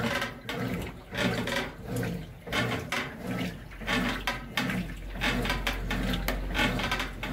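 Brastemp BWG12 top-loading washing machine agitating a load of water and clothes, sloshing in a steady back-and-forth stroke about every 0.7 seconds. With each stroke comes a pitched metal-on-metal creak from the suspension rods, which the owner traces to dry, unlubricated rod bushings (castanholas) at the cabinet corners.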